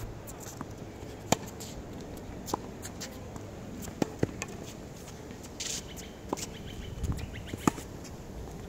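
Tennis rally on a hard court: sharp pops of rackets striking the ball and the ball bouncing, about one every second or so.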